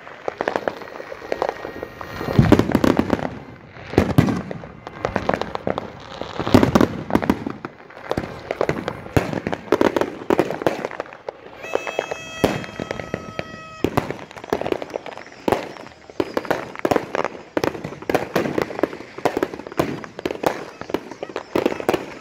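Aerial fireworks going off: repeated deep booms of bursting shells over a near-continuous crackling of smaller pops. About halfway through, a steady pitched tone sounds for about two seconds.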